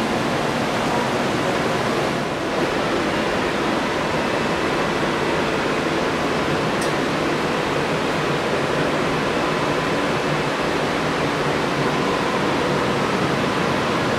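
Steady loud rushing noise of a rail car's air-conditioning and ventilation system, with a faint steady whine above it.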